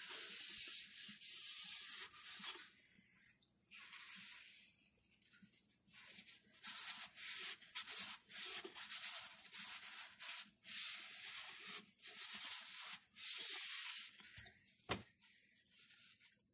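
A towel rubbing and scrubbing the top rim of a white plastic sink drain tailpiece, cleaning the sealing surface, in uneven strokes with short pauses. A sharp click sounds near the end.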